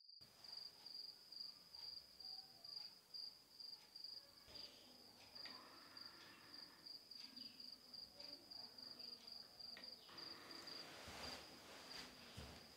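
Faint cricket chirping, a high steady trill pulsing in quick regular beats. From about ten seconds in, bedding rustles as a person shifts in bed.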